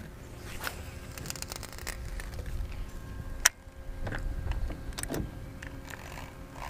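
Baitcasting reel being cranked while a lure is retrieved: a quiet mechanical whir with scattered light clicks and one sharp click about three and a half seconds in, over a faint steady hum.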